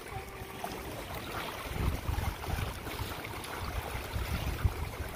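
Small wind-driven waves lapping and splashing against a rocky lakeshore, with wind gusting on the microphone as a low, uneven rumble.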